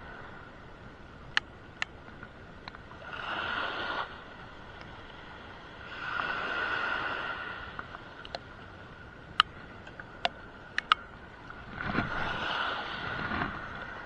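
Choppy water sloshing against a small boat's hull in swells of a second or two, three times, with wind on the microphone and a few sharp clicks in between.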